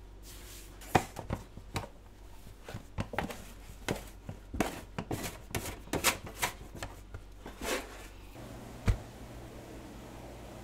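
Irregular taps and knocks of tools and hands working on a bakery counter, coming in quick uneven clusters, with one sharper knock near the end.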